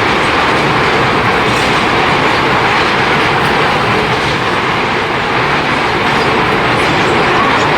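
Gold-ore milling machine running: a loud, steady mechanical din with faint irregular clicks and no pauses.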